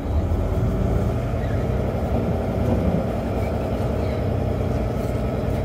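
Volvo semi truck's diesel engine running steadily at low revs while the truck creeps forward into a parking spot, heard from inside the cab.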